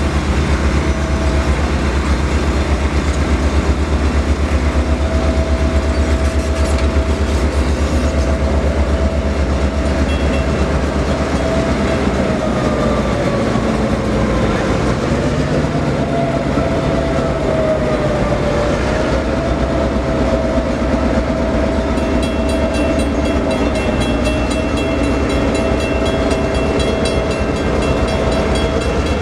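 Ex-Southern EMD GP38-2 diesel locomotive with its two-stroke 16-cylinder engine, rumbling steadily as it moves a passenger train slowly. A steady squeal from the wheels wavers in pitch partway through. About three-quarters of the way in, the locomotive's bell starts ringing in an even rhythm.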